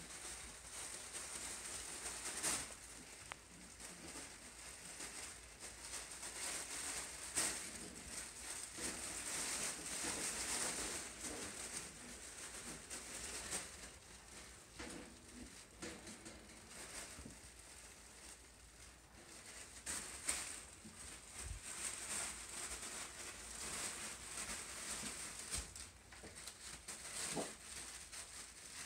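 Faint scuffling of Havanese puppies at play: soft patter of small paws and claws on tile and puppy pads, with light crinkling and scattered small knocks.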